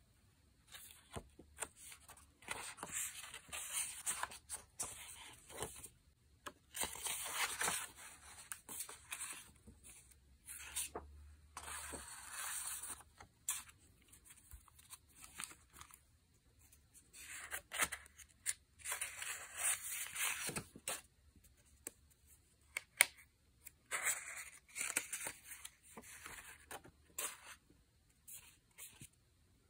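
Sheets of scrapbook paper being handled and leafed through, rustling and sliding against each other in irregular stretches, with occasional small ticks and taps.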